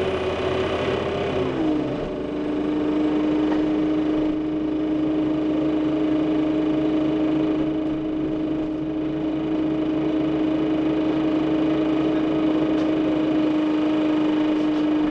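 A 2003 Orion VII transit bus's Cummins C Gas Plus CNG inline-six running under way, heard from inside the bus. A steady whine rides over the engine and road rumble; about a second and a half in it drops in pitch once, then holds steady.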